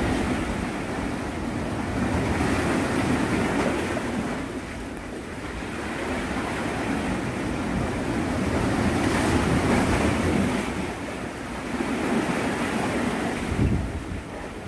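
Sea waves washing against the shore, the rush of water swelling and fading every few seconds, with wind buffeting the microphone.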